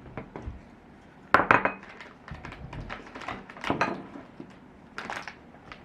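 Tableware clinking and clattering at a meal: cutlery against plates and glasses, in scattered knocks, the loudest cluster about a second and a half in.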